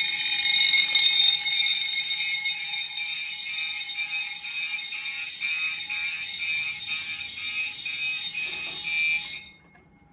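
Fire alarm system's notification appliances sounding together: loud steady alarm tones with a horn pulsing about twice a second. The alarm cuts off suddenly near the end, as the system is reset.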